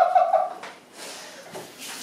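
A voice trailing off, then a kitchen faucet turned on about a second in and running as a steady hiss of water for hand-rinsing.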